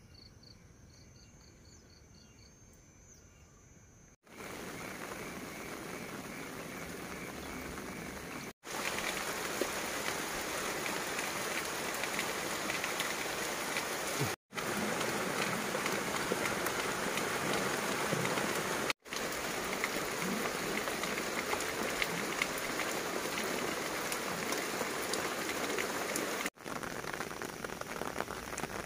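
Steady heavy rain pattering on grass, leaves and a wet concrete lane, as an even hiss broken off by several abrupt cuts. The first few seconds are much quieter, with a faint run of high, evenly spaced chirps.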